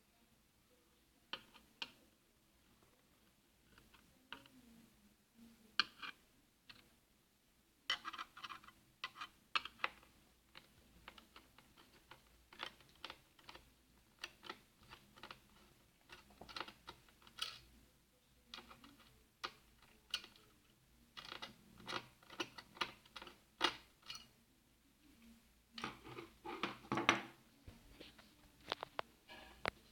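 Irregular clicks, taps and knocks of plastic and metal parts being handled as the casing of an Acer U5600 all-in-one computer is taken apart to reach its hard drive. The clicks are sparse at first, come thick and fast after about eight seconds, and are loudest in a busy cluster near the end.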